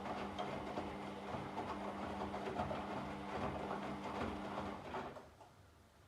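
Washing machine running: a steady motor hum under a busy rattle from the turning drum. It stops suddenly about five seconds in.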